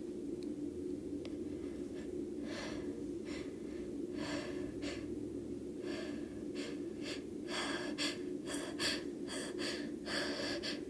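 A woman's sneeze buildup during deliberate sneeze inducing: a series of short gasping inhalations that come faster and closer together in the second half, ending in a longer drawn-in breath just before the sneeze. A steady low hum runs underneath.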